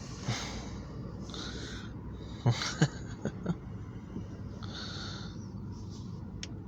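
Breathy puffs close to the microphone and a few sharp knocks, the loudest about halfway through, over a steady low hum.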